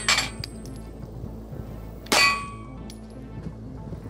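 Two pistol shots from a Walther PPS 9mm, one just as it begins and one about two seconds in. The second is followed by a short metallic ring, a steel target plate being hit.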